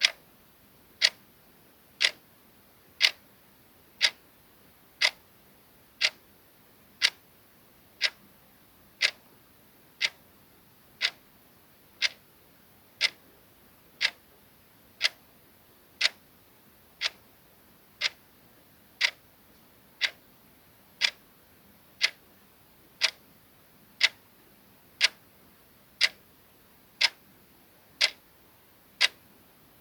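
Clock ticking sound effect: soft, crisp ticks at a steady one per second, each tick the same.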